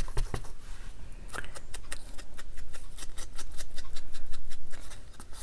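Scissors cutting paper: a quick run of short snips.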